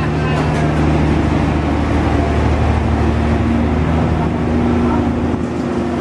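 A large passenger boat's engine running steadily under way, heard from inside its cabin: a steady low drone with a hiss above it.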